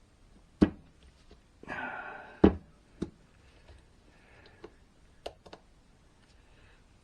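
Metal gear shifter parts being handled on a workbench: a few sharp knocks and taps, the loudest about two and a half seconds in, with a short breathy rush just before it.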